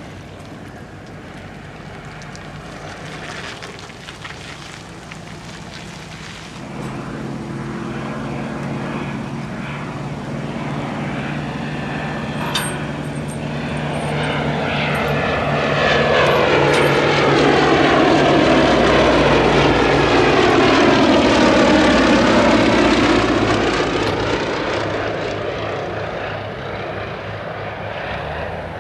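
Westland Lysander aircraft in flight, their Bristol Mercury nine-cylinder radial engines droning steadily. The sound builds about a quarter of the way in and is loudest in the middle, with a sweeping, swirling tone as a plane passes close. It then fades toward the end.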